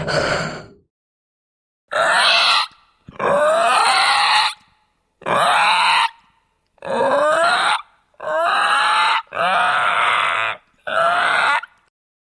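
Zombie sound effects: seven separate guttural grunts and growls from a voice, each about a second long, with dead silence between them. Several slide upward in pitch.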